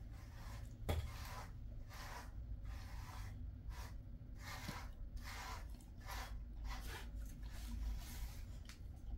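A grooming brush stroking through a dog's tail fur: short, scratchy rubbing strokes repeated about twice a second.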